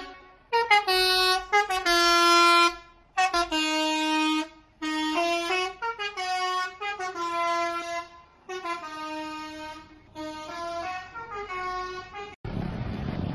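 A horn sounding a tune of held notes that step up and down in pitch, with short gaps between them. Near the end it cuts off suddenly and a steady, rushing noise takes over.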